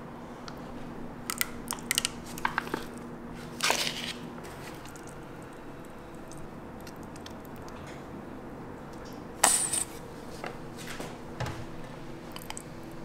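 Wet squishing and splatting of ketchup and mustard streaming onto a pan of mayonnaise, with scattered short clicks from bottle and utensil handling and a louder burst about nine seconds in, over a steady low hum.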